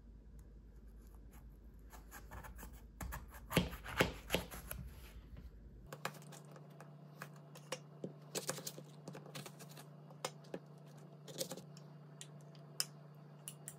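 Kitchen-knife sounds while slicing an apple on a plastic cutting board: crisp cuts and clicks as the blade goes through the fruit and taps the board, with a cluster of louder knocks a few seconds in. Near the end a metal spoon clinks and scrapes on the plate.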